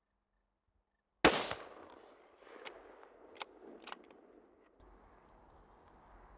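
A single rifle shot from a Tikka T3x in .308 about a second in, its report echoing away over a fraction of a second. A few faint clicks follow.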